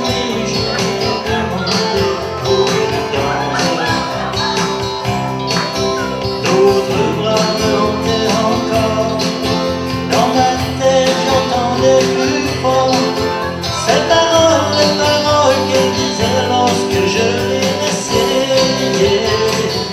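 Live band of electric guitars, electric bass and drum kit playing a sixties-style pop song, with women's voices singing over it.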